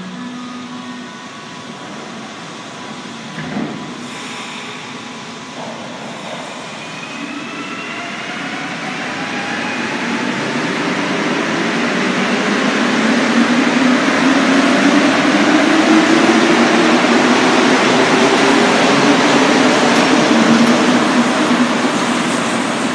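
A Montreal metro Azur (MPM-10) rubber-tyred train pulls out of the station past the platform. Its traction motors whine in several layered tones that rise steadily in pitch as it accelerates, and the sound grows louder with the rush of the cars passing close by. There is a short knock about three and a half seconds in.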